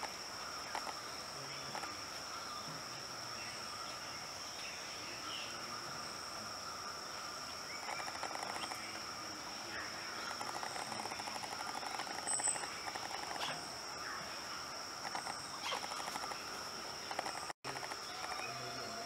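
Rainforest insects droning steadily at a high pitch, over a second, lower steady drone, with scattered short chirps and clicks. The sound drops out for a moment near the end.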